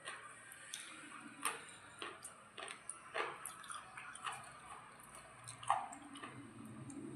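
Irregular wet squelches and drips from water-soaked rice (pakhala) being mixed and eaten, with the loudest squelch near the end.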